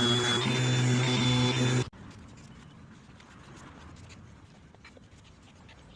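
Power tool motor running steadily with a high whine, then cutting off abruptly about two seconds in, leaving faint low noise.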